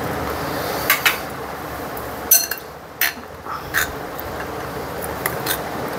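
A metal spoon stirring milky sabudana kheer in a glass bowl, clinking against the glass several times. One clink about two seconds in rings briefly.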